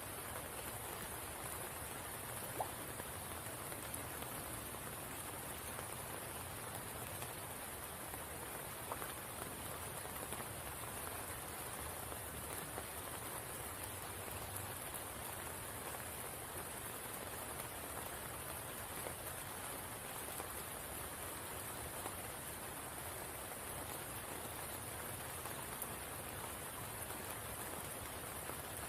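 Steady rain falling on the water and foliage of a spring pool, an even hiss with a few single drops standing out. A constant high-pitched hiss sits above it.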